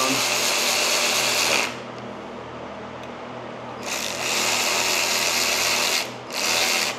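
Cordless electric ratchet buzzing in three bursts as it runs down the bolts of a timing chain tensioner on an Ecotec engine: a long burst at the start, another about four seconds in, and a short one just before the end.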